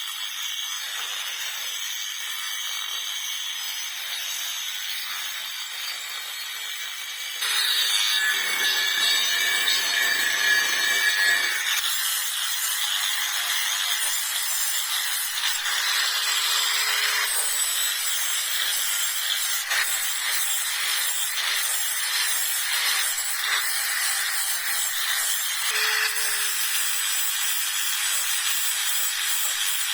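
Wood being worked with continuous scraping, sawing-like strokes, louder from about seven seconds in; a faint steady hum joins around halfway through.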